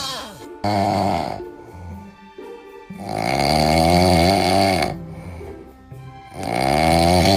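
Loud snoring with a pitched, wavering tone: a short snore about a second in, a long one in the middle, and another starting near the end, over background music.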